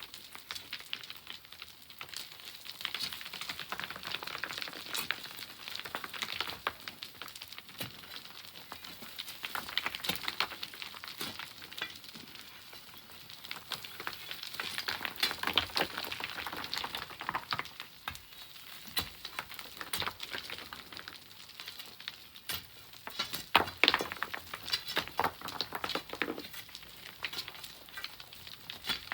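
Sand and pebbles sliding and trickling down a dug bank: a crackling hiss dotted with sharp clicks of small stones, rising and falling in several waves, with the sharpest clicks late on.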